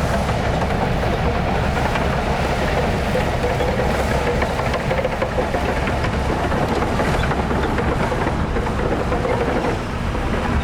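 Heavy diesel earthmoving machinery running steadily: a continuous low engine drone with no breaks.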